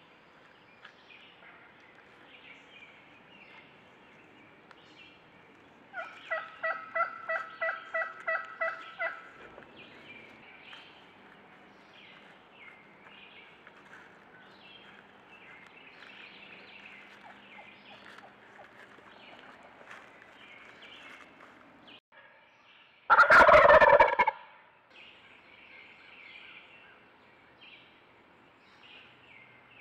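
Wild turkeys calling: a steady run of about a dozen short, evenly spaced calls about six seconds in, then a tom's loud gobble, the loudest sound, a little past the twenty-second mark. Faint songbird chirps fill the gaps.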